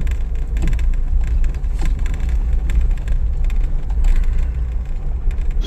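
Low, steady rumble of a vehicle on the move, most of it deep in the bass, with a few faint knocks.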